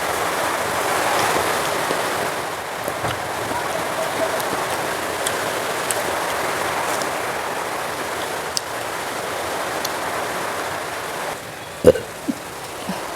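A steady rushing hiss with a few faint clicks from eating. Near the end the hiss drops and a single dull knock sounds, followed by two smaller ones.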